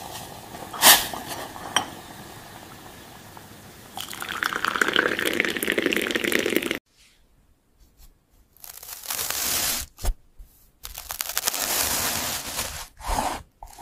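Milky tea bubbling in a saucepan over a gas flame, a low steady hiss with a few clicks. Then, about four seconds in, it is poured in a stream through a strainer into a cup for nearly three seconds. After a short silence, a knife cuts through a felt ball on a wooden board in two scratchy, crunching strokes.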